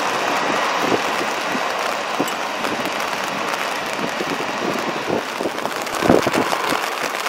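Jet blast from a Boeing 747 at takeoff power driving rain spray over the microphone: a steady rush of noise spattered with fine droplet crackles, with a louder crackly burst near the end.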